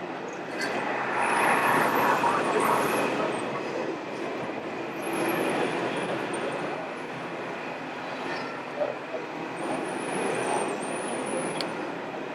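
Busy outdoor background of crowd chatter, with faint high whines that rise and fall twice, the kind made by the small electric motors of radio-controlled model trucks.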